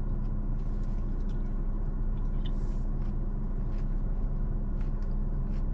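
Steady low hum of a car's idling engine inside the cabin, with a few faint small clicks.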